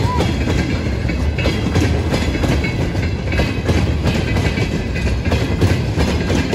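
Freight train wagons rolling past, a steady rumble with wheels clattering over the rail joints.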